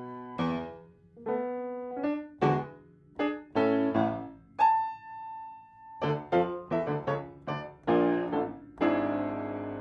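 Solo piano accompaniment music: struck chords and notes that each ring and fade, then a single held high note about halfway through, followed by a run of quicker notes and a fuller chord near the end.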